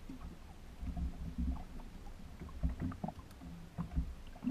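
Irregular low knocks and rumbling from a small aluminium boat's hull, typical of river water slapping against it.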